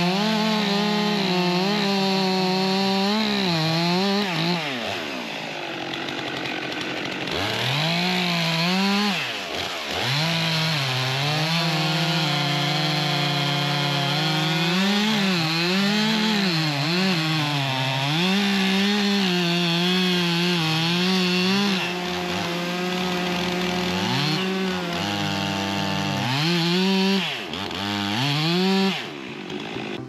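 Two Stihl chainsaws, a 462 and a 400C, cutting through oak logs at the same time. The engines run at high revs, with their pitch dropping as the chains bite into the wood and climbing again as they clear, and the throttle eases off a few times between cuts.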